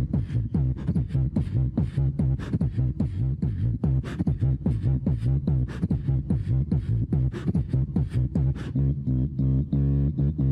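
A man beatboxing: fast drum-like mouth hits over a steady deep bass, imitating loud subwoofer music. About nine seconds in, the hits thin out and a held bass-guitar-like tone takes over.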